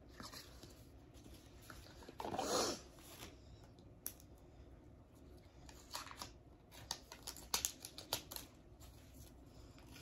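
Paper and card packaging handled by hand: soft rustling and crinkling, a louder swish about two seconds in, and a cluster of small clicks and crinkles around six to eight seconds in as the deck is reached for.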